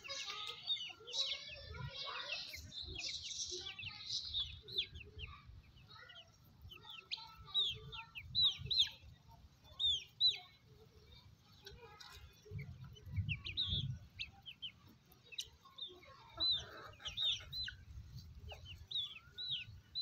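Backyard chickens clucking and calling, with many short high chirps repeating throughout and an intermittent low rumble.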